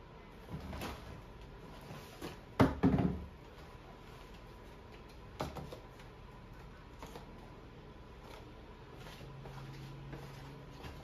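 Groceries unpacked from a paper bag onto a wooden table: several dull knocks and thumps as plastic bottles and packages are set down, the loudest about a quarter of the way in, with handling of the paper bag between.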